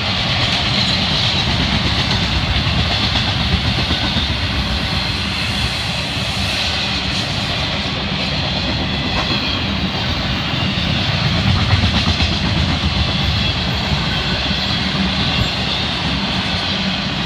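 Florida East Coast Railway intermodal freight train cars, loaded with containers and trailers, rolling steadily past, with the wheels rumbling and clacking over the rails.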